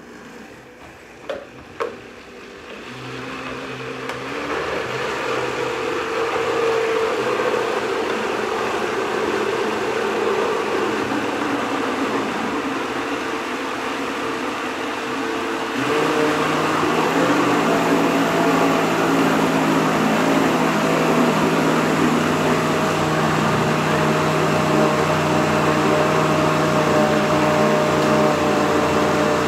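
Vitamix blender starting after two clicks and running steadily, puréeing thick roasted pumpkin pulp with no added water. About halfway through it gets suddenly louder, with a new low tone.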